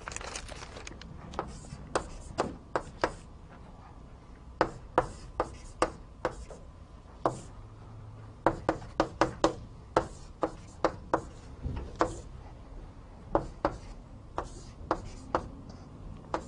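Chalk on a blackboard as a line is written out: irregular sharp taps and short strokes, often in quick runs of several, with brief pauses between.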